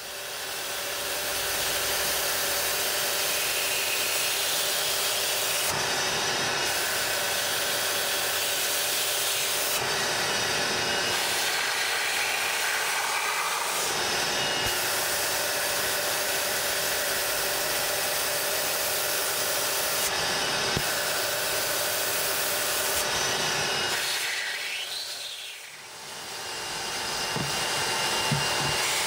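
Rug Doctor carpet-cleaning machine running steadily, its vacuum motor sucking water and dirt back through the upholstery hand tool as it is worked over car fabric. The sound fades down briefly and comes back up about four seconds before the end.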